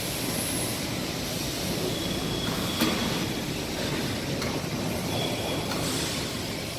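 Steady machinery noise with a sharp click about three seconds in and two short, high squeals.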